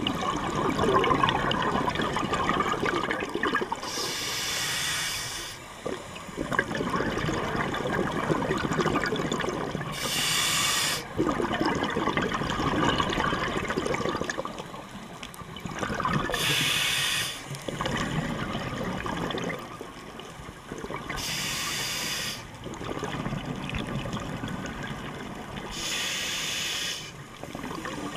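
Scuba diver breathing through a regulator underwater: a hiss about every five to six seconds, five times in all, with bubbling rushes of the exhaled air between them.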